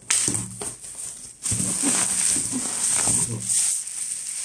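Packing tape being pulled and torn off a cardboard parcel, a screeching, rasping strip with short squeals. It gets louder and steadier about a second and a half in.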